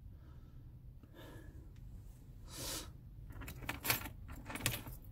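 Faint light clicks and small metallic rattles, several in quick succession in the second half, over a low steady hum.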